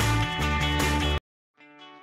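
Background music. A full, bass-heavy track cuts off abruptly about a second in. After a brief silence, a quieter guitar track with plucked notes starts and gradually grows louder.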